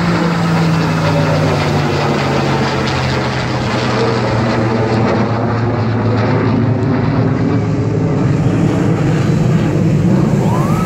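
An F-22 Raptor and a P-51 Mustang flying past together in formation: loud, continuous aircraft engine noise with a steady drone whose pitch slowly falls as they pass.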